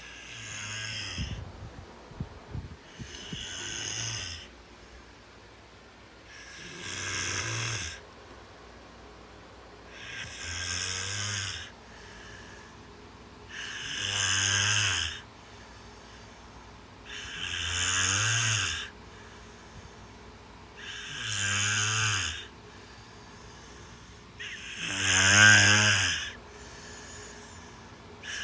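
Snoring, in a steady rhythm of about eight snores, one every three and a half to four seconds. The snore near the end is the loudest.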